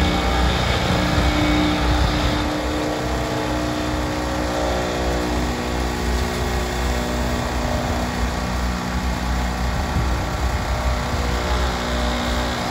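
Diesel engine of a Case 221F compact wheel loader running steadily as it tips a bucket of soil onto a vibrating screener. Under it is the even hum of the screener's two 3600 rpm vibratory motors and the petrol generator that powers them.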